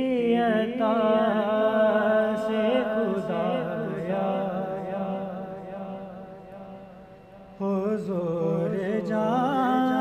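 A man singing a naat, an Urdu devotional song in praise of the Prophet, in long, ornamented held phrases. One phrase fades out, and a new one begins about seven and a half seconds in.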